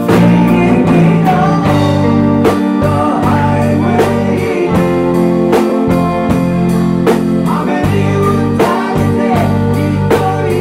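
Live rock band playing an instrumental passage: electric guitars, electric bass and a drum kit keeping a steady beat, with bending guitar notes on top.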